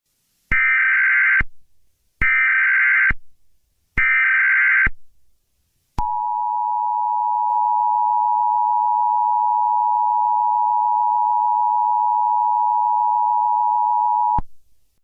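Emergency Alert System opening tones: three short bursts of SAME header data, each about a second long, followed by the steady two-tone EAS attention signal, held for about eight seconds before it cuts off. The tones announce an emergency alert broadcast.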